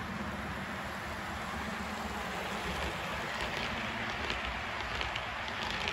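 HO scale model freight train rolling past on the track, a steady rumble from the locomotive and the long string of intermodal cars. Light clicking joins in from about halfway through.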